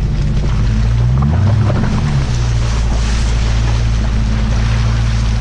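Jeep Grand Cherokee's 4.7 L V8 through a Flowmaster exhaust, revving up and back down about a second in, then running steadily under load. A rushing noise of churning mud and water runs underneath.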